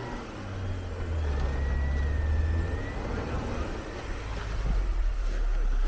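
Jeep Wrangler JK's 3.6-litre V6 engine pulling under load as the Jeep climbs forward out of deep snow, the low rumble swelling about half a second in and again near the end, with a thin whine in the middle.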